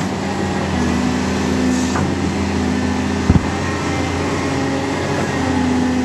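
A 35-tonne excavator's diesel engine runs steadily while the machine works. There is one short, sharp knock about halfway through.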